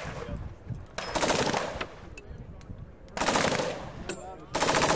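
Arms Tech Compak-16 short-barrelled carbine firing three short full-auto bursts, each under a second long, about a second apart.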